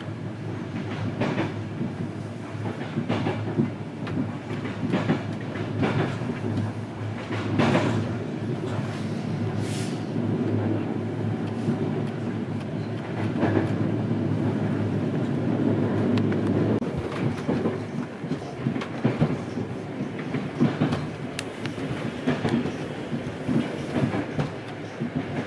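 Rolling noise of a moving passenger train heard from inside the carriage, a steady rumble with the wheels clicking over rail joints every second or two.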